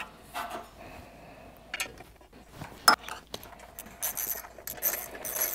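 Small metal clicks and clinks of bolts and a socket being handled as a generator's end cover is bolted back on, with a quicker run of bright metallic clinking near the end.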